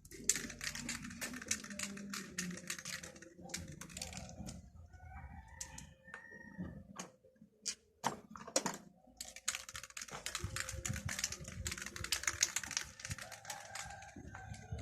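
Rapid, dense clicking and rattling of small hard objects, in two busy stretches with a sparser pause of a few scattered clicks in the middle.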